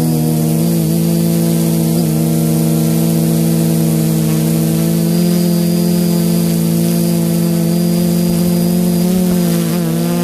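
Quadcopter's Sunnysky 980kv brushless motors spinning 10x4.5 APC propellers, a steady buzzing drone heard from on board the craft, with brief wobbles in pitch about two seconds in and near the end.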